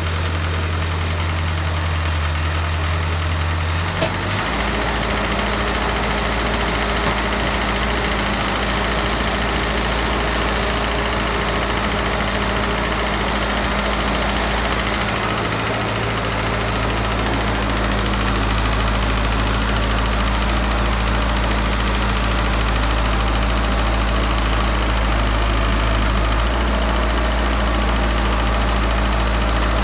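Engine of a tracked hydraulic drilling rig running steadily while it cores into bedrock. Its low hum drops in pitch and gets heavier about four seconds in, and shifts again around the middle and near the end.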